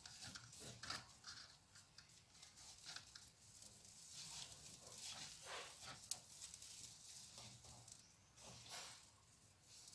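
Faint, irregular rustling and scratching of yarn being worked with a crochet hook, with one small click about six seconds in.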